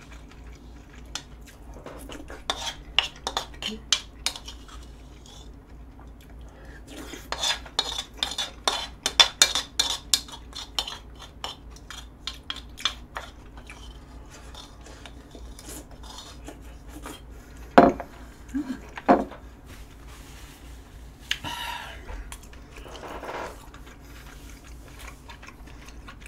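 Chopsticks clicking and scraping against a bowl while eating, in quick runs of taps with quieter gaps between.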